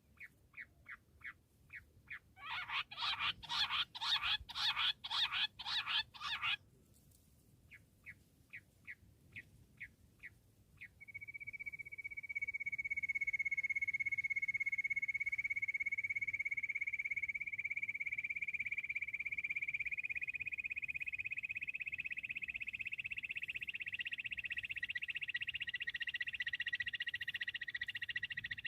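Bush quail calling: a run of short, high, evenly repeated notes, a louder stretch of rapid notes a few seconds in, more short notes, then a long steady high trill from about eleven seconds in that runs on and thickens.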